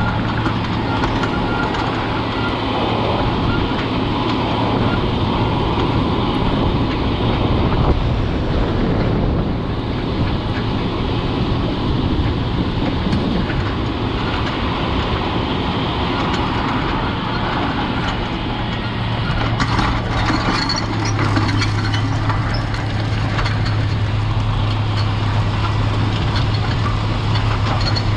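Four-wheel-drive farm tractor's diesel engine running steadily while it pulls a strip-till bar, with a low steady engine drone that deepens and strengthens about two-thirds of the way through.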